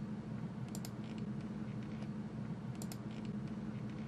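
Computer mouse clicking in two short quick clusters, about a second in and near three seconds in, over a steady low hum.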